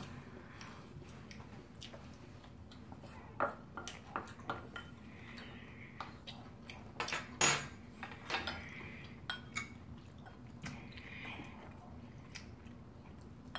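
Metal cutlery clicking and scraping against ceramic plates and bowls during a meal, in scattered taps with the loudest about seven and a half seconds in.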